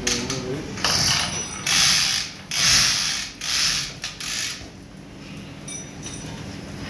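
A ratchet clicking in about five short strokes, each about half a second long and close together, from about a second in to a little past halfway; the third stroke is the loudest.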